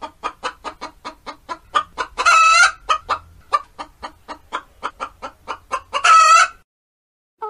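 A hen clucking: a fast run of short clucks, about five a second, broken by longer drawn-out squawks at the very start, about two seconds in and about six seconds in, then it stops.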